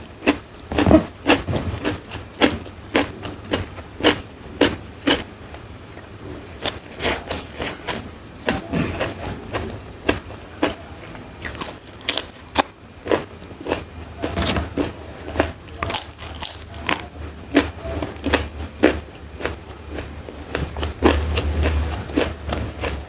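Close-miked eating: repeated crunchy bites and chewing, about two crunches a second. A low hum grows louder near the end.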